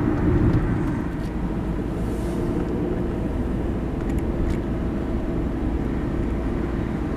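Steady low rumble of a car's engine and tyres on the road, heard from inside the cabin while driving, with a faint steady hum.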